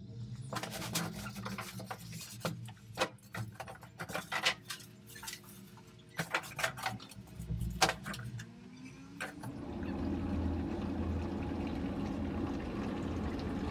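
Crinkling plastic wrap, squeaking polystyrene and cardboard knocks as a 6-litre gas tankless water heater is unboxed. About nine seconds in, this gives way to a steady rushing hum: the installed heater running with water flowing through it and its burner lit.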